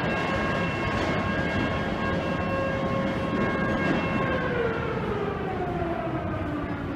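Federal Signal Model 2 electromechanical siren heard from a long distance on an attack-signal test. It holds one steady pitch, then about four seconds in winds down, falling in pitch. A steady background rumble lies under it.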